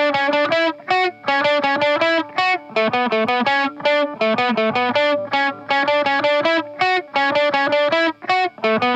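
Instrumental opening of an anime theme song: a distorted electric guitar picking a fast, choppy riff of short repeated notes, several a second.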